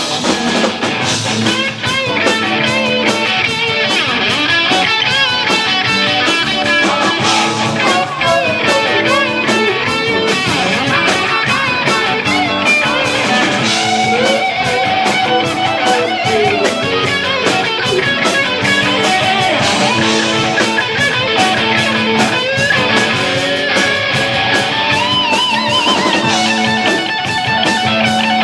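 Live rock band playing loud, with distorted electric guitars over a steady drum beat.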